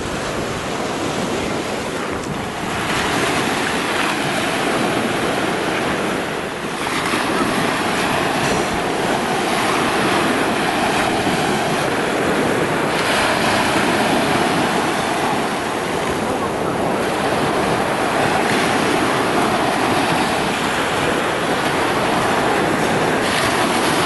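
Sea waves washing and breaking close by in a steady surge that swells and eases, with wind on the microphone.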